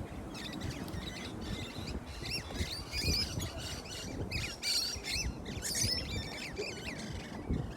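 Small birds chirping in quick, overlapping short calls, over a steady low rumble.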